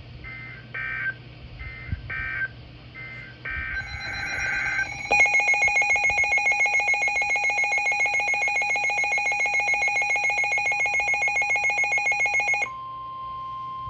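Emergency Alert System tones on NOAA Weather Radio, announcing a new warning. First come three short bursts of SAME digital data tones. From about five seconds in, a loud, rapidly pulsing multi-tone alert sounds. Near the end it switches to the steady single 1050 Hz weather-radio warning tone.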